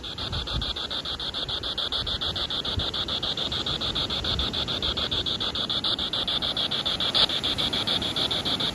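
Spirit box sweeping through radio frequencies: a fast, even chopping of static, about ten pulses a second. No voice comes through the sweep.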